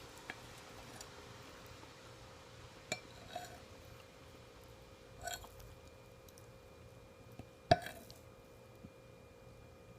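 Cutlery clicking against a plate during a meal: about six short, separate clinks, the loudest about three-quarters of the way through. A faint steady hum runs underneath.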